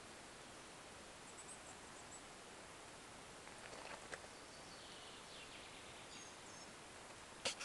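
Faint steady background hiss with a few thin, high bird chirps. There are a couple of soft clicks about halfway through and a sharper click near the end.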